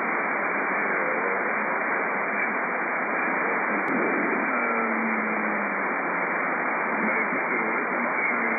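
Shortwave receiver in lower-sideband mode between transmissions: steady hiss and static with faint wavering whistles. A low steady tone holds for about two seconds past the middle, and a single click comes about four seconds in.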